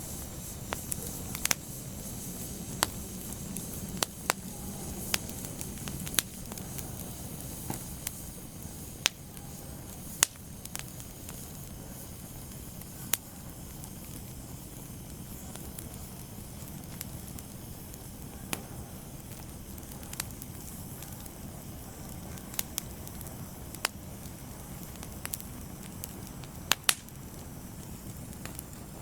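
Fire crackling: a steady low hiss broken by irregular sharp pops every second or two.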